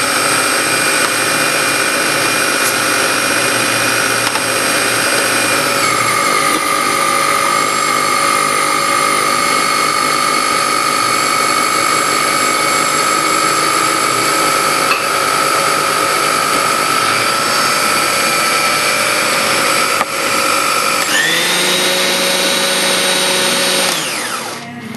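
Food processor motor running steadily while it blends biscuit crumbs with softened butter for a cheesecake base. Its whine drops in pitch about a quarter of the way through and rises again near the end, and then the motor is switched off just before the end.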